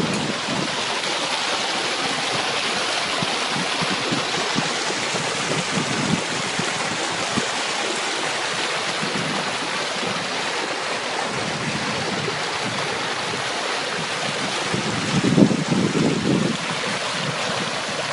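Hurricane floodwater rushing in a steady, even roar of water, with a brief louder low rumble about three-quarters of the way through.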